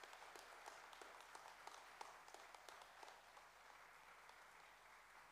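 Congregation applauding: a faint patter of many hands clapping, thinning out after about three seconds.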